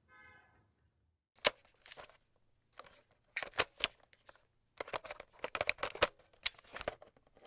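A run of sharp, irregular clicks in clusters over a faint low hum, starting about a second and a half in.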